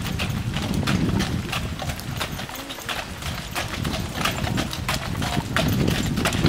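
Horse's hooves clip-clopping at a walk, drawing a carriage, over a steady low rumble.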